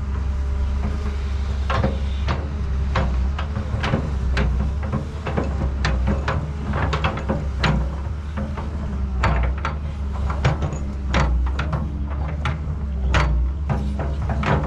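Excavator working: a steady low hum of its motor under many irregular clicks and knocks from the machine moving.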